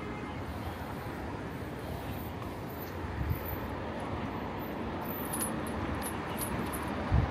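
Street ambience heard from a moving bicycle: a steady rush of traffic and riding noise with gusty low rumble. A short low bump comes near the end.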